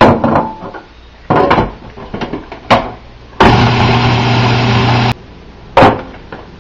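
Plastic clunks and knocks as the lid and pusher of a food processor are fitted, then its motor runs in one short burst of under two seconds and stops suddenly, chopping soaked wood ear fungus and glass noodles, followed by a single knock.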